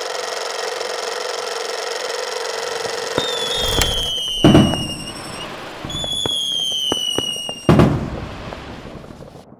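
Two fireworks, each a falling whistle that ends in a loud bang, the bangs about three seconds apart. A steady droning tone runs under the first four seconds.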